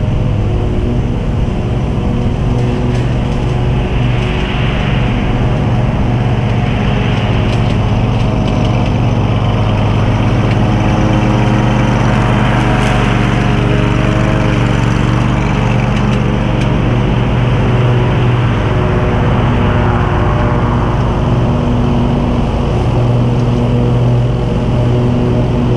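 John Deere QuikTrak stand-on mower's engine running steadily while it mows, coming close about halfway through and moving away again.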